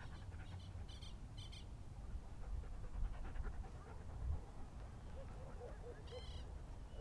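Rough collie giving short high-pitched whines, a quick pair about a second in and another near the end, over a steady low rumble of wind and handling on the microphone.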